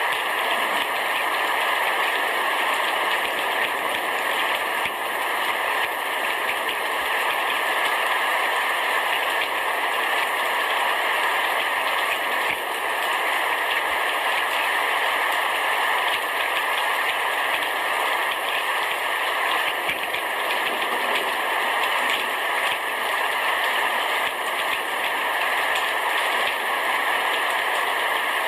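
Heavy rain shower falling on a roof: a steady, dense hiss of many drops that does not let up.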